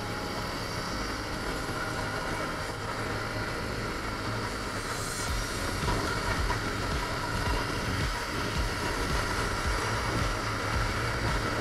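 Wind rushing and buffeting over an action camera's microphone on a motorcycle at highway speed, over the steady running of a Yamaha MT-15's 155 cc single-cylinder engine. The wind gets a little louder about six seconds in.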